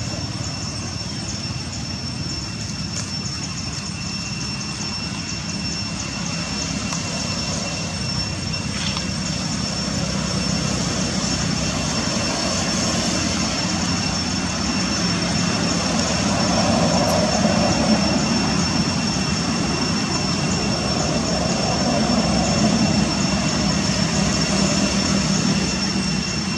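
Steady outdoor background noise: a low rumble that grows slowly louder, with two steady high-pitched tones above it.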